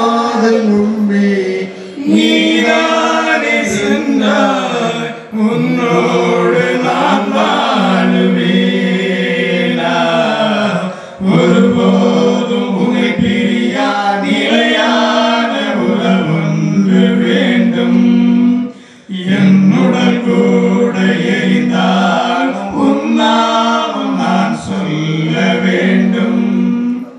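Voices singing a church hymn unaccompanied, in long held phrases with brief breaks between them.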